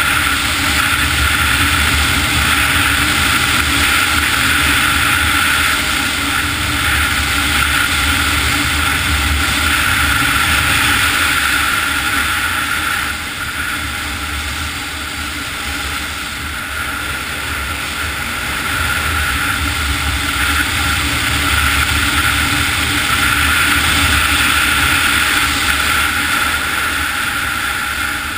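Snowmobile riding along a groomed trail: the engine and track run steadily with a constant whine. The sound eases off about halfway through, builds again, and falls away near the end.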